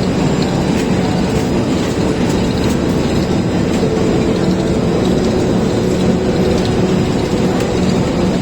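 Machinery running with a steady, dense rattling clatter and a faint steady hum underneath.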